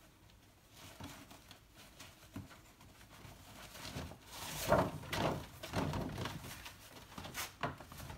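Paper rustling and crinkling as a hand rummages in a large paper shopping bag and pulls out paper wrapping, faint at first and louder from about four seconds in.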